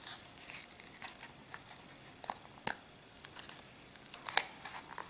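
Flexible plastic coaster mold crinkling and clicking as it is twisted and the cured resin coaster pops loose: scattered faint clicks and rustles, with sharper ticks about two and a half seconds in and again a little after four seconds.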